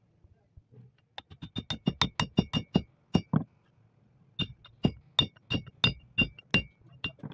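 Hammer blows on the steel housing of a Toyota Hiace tie rod end as the end cap is tapped in over the greased ball stud. A fast run of about a dozen sharp strikes, a short pause, then about nine more, each with a ringing metallic note.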